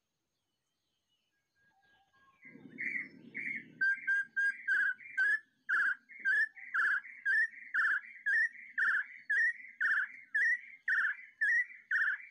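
A bird calling a long, regular series of short whistled notes, each sliding upward, about two a second, starting about two seconds in. A brief low buzz sounds under the first few notes.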